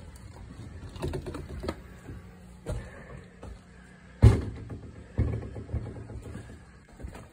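Footsteps and thumps of someone stepping up into a fifth-wheel camper and walking across its floor, a few irregular knocks with the loudest about four seconds in.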